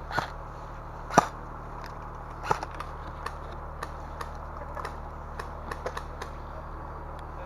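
Airsoft gun firing single shots: three sharp cracks in the first two and a half seconds, the loudest about a second in, followed by fainter scattered ticks over a steady low hum.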